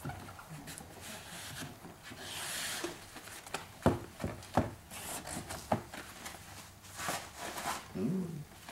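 A paper towel wrapped over a hard card is rubbed and wiped across a car door's window glass, with several light knocks against the glass and door partway through.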